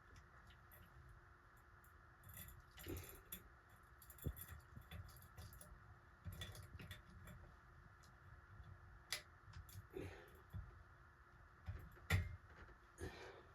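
Irregular light clicks and rattles of small metal parts and tools being handled while a ceiling fan's pull chain switch is being replaced, with a few sharper knocks near the end.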